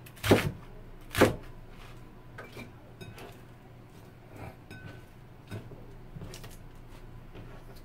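Chinese cleaver chopping through napa cabbage onto a plastic cutting board: two sharp chops in the first second or so, then light taps and clicks as the cut cabbage is gathered and moved into a bowl.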